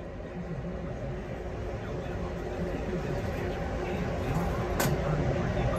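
Motorized target carrier running along its overhead track at an indoor range, a steady mechanical rumble that grows louder as it brings the paper target in toward the booth. A single sharp click about five seconds in.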